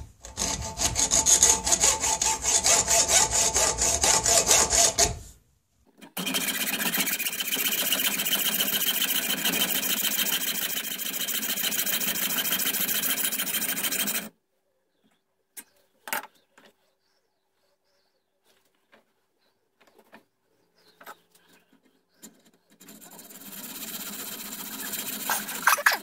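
Hacksaw cutting a small metal tube, a ramrod pipe clamped in a bench vise, in quick back-and-forth strokes. The sawing stops after about five seconds, runs again from about six to fourteen seconds, falls quiet apart from a few light clicks, and starts up again near the end.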